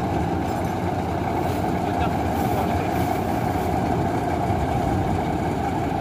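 Combine harvester's engine running steadily close by, a dense even drone with a held mid-pitched whine.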